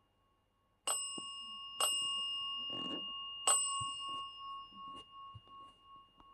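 A small metal bell struck three times in quick, uneven succession, its clear ringing tone lingering and slowly fading after each strike.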